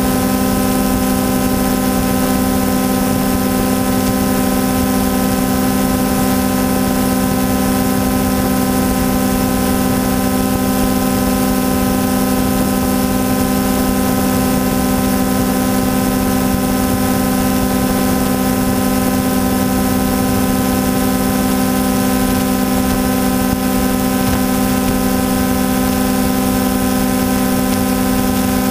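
Quadcopter drone's motors and propellers humming at a constant pitch over a steady hiss.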